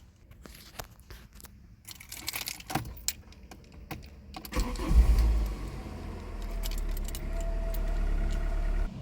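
Keys jangle and rattle in the ignition, then about five seconds in a Volkswagen Polo's engine cranks and catches, surging briefly before settling into a steady idle on freshly changed oil.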